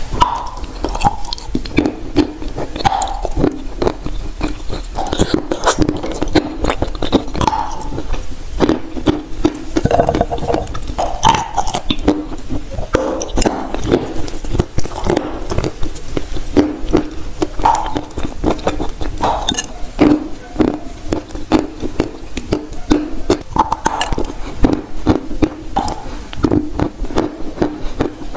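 Close-miked biting and chewing of chunks of dry edible clay (Turkestan clay): a dense, continuous run of crunches and small mouth sounds.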